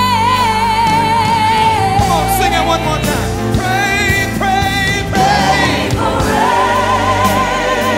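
Background music: a singing voice holding long notes with vibrato over a steady, sustained accompaniment.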